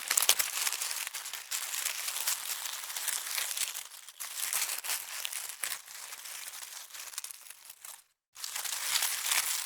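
Dense crackling and rustling made of many small clicks, like dry material being crumpled or trodden; it cuts out briefly about eight seconds in, then carries on.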